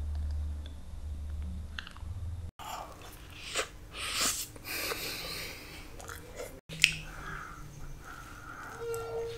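Close-miked biting and chewing of a slice of Black Forest cake: soft, wet chewing of cream and sponge, broken by two abrupt cuts, with a sharp click about seven seconds in. A low hum sits under the first two seconds.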